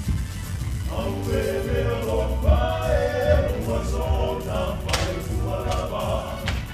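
Church choir singing together, the voices coming in about a second in, over a steady low rumble.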